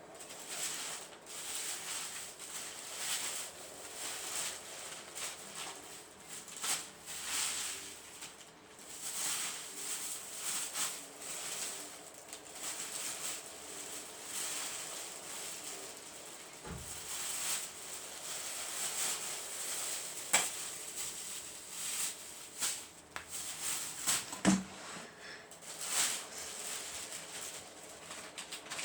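Pet parrot moving around in its cage: repeated rustling, scratching and flapping sounds, with two sharp knocks partway through.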